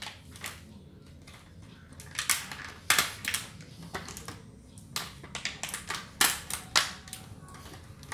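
Irregular sharp clicks and crackles of stiff clear plastic clamshell food containers being handled and pressed with a small hand tool. The clicks come in uneven clusters, loudest about two to three seconds in and again about six to seven seconds in.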